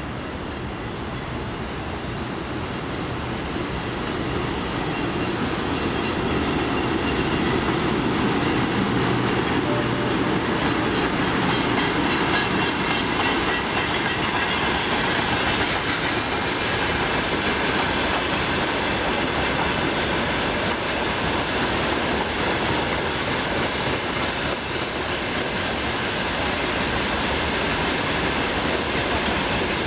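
A freight train of open wagons hauled by an electric locomotive rolling past on the rails. It grows louder over the first several seconds as it draws level, then stays steady as the wagons go by.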